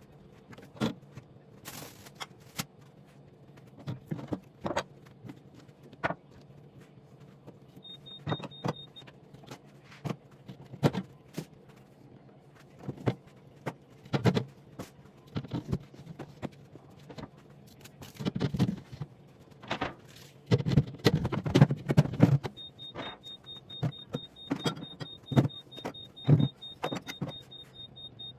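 Household objects being handled, with irregular knocks and clatters, heaviest around the middle, over a low steady hum. A high electronic beep pulsing rapidly sounds briefly about eight seconds in and then keeps going through the last six seconds.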